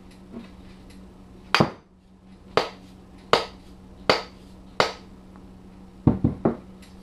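Sharp knocks of a hatchet being struck against a wooden workbench: five knocks roughly three-quarters of a second apart, then three quick ones near the end, each with a brief ring, over a steady low hum.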